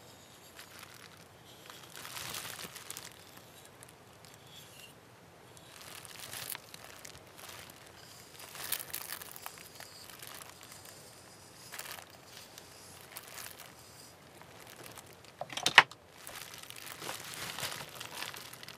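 Quiet, intermittent rustling and crinkling of hands handling things on a modelling workbench, with one sharp click about three-quarters of the way through.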